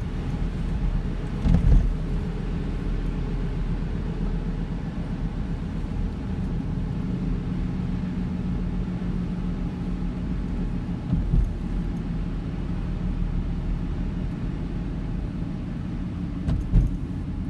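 Car driving along: a steady low road-and-engine rumble, with a couple of brief thumps, one about a second and a half in and one near the end.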